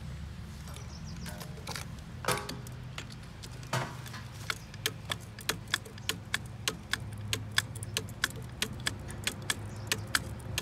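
Hand lever grease gun being pumped into the grease nipple of an excavator's bucket pin: after a couple of isolated metallic clinks, a run of regular sharp clicks starts about four and a half seconds in, about three a second. A steady low hum runs underneath.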